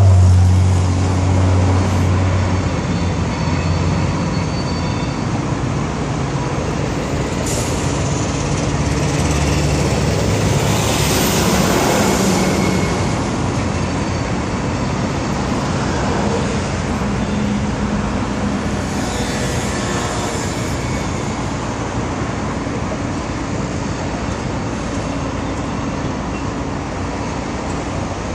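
A train passing, with a steady, loud rumble and hiss. A faint high whine rises and falls near the middle.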